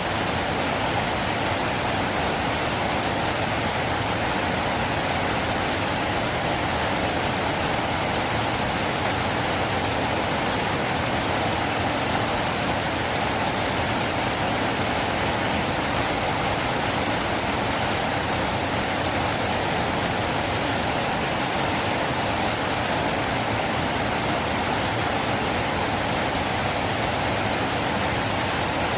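A river flowing, a steady, even rush of water.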